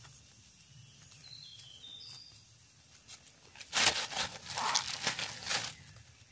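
Dry leaf litter and undergrowth crackling and rustling under a forager's movements, in one loud burst of about two seconds starting a little past halfway.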